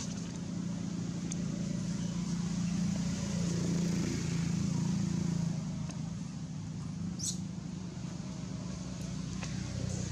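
Low engine hum of a motor vehicle, swelling a couple of seconds in and easing off after about six seconds. A short high chirp about seven seconds in.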